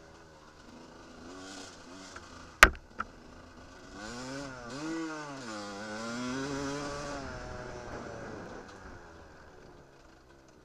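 Dirt bike engine revving up and falling back again and again as the rider accelerates and backs off over rough ground. It is loudest in the middle stretch. A sharp knock about two and a half seconds in, with a smaller one just after, is the loudest sound.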